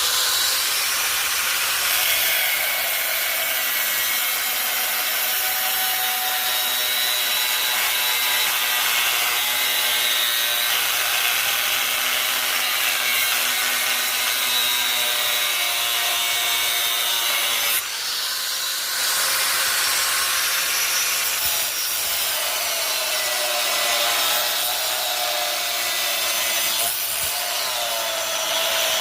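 Electric power tool grinding or cutting the steel of a chainsaw guide bar, running continuously with a steady high whine, easing off briefly about 18 seconds in.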